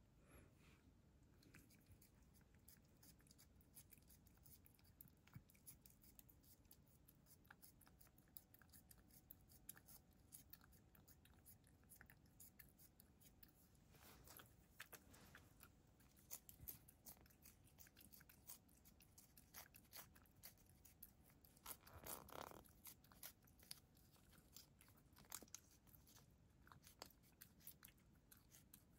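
Faint smacking and clicking of a cat licking and chewing a soft treat from a hand: many small wet clicks, with a louder spell about three-quarters of the way in.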